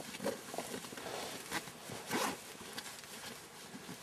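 Quiet rustling and scuffing, with a louder rustle about two seconds in.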